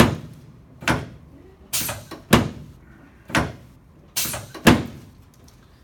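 Chiropractic spinal adjustments on a patient lying face down: a series of about seven sharp knocks from the treatment table, spaced unevenly about half a second to a second apart.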